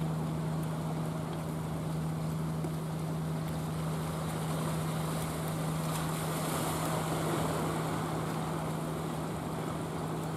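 Engine of a motorised outrigger fishing boat droning with a steady, even hum, over the wash of wind and sea.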